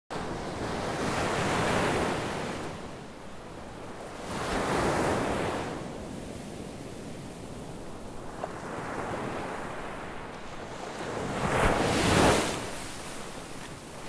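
Ocean surf breaking and washing up the shore in three swells, the loudest near the end, with wind on the microphone.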